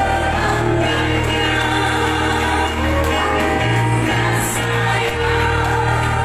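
Live music through a PA system: a heavy, steady bass line and held instrumental notes come in at the start, with a singer on a microphone over them.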